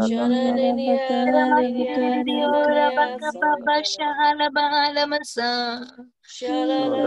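A woman singing in tongues: wordless syllables on long, held notes, breaking off briefly near the end.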